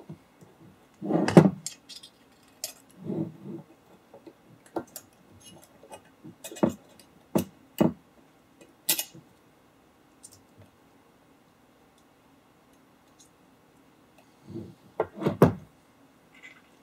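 Small metal tools and hardware clicking and clinking as tiny brass nuts are driven onto magnetron mounting screws with a 5.5 mm nut driver. There are scattered sharp clicks with gaps between, and heavier knocks about a second in and again near the end.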